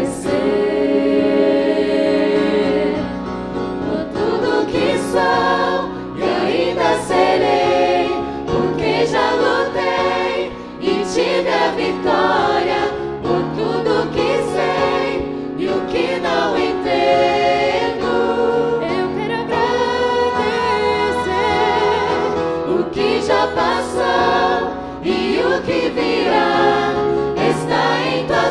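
Mixed vocal group of men and women singing a gospel song in harmony, with keyboard accompaniment.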